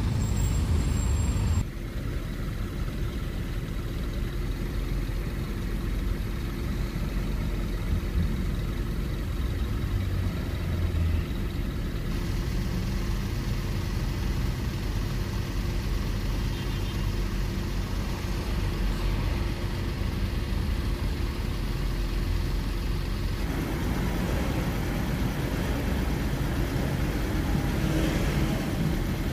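Low, steady hum of a Toyota car's engine idling, heard from inside the cabin, dropping slightly in level about two seconds in.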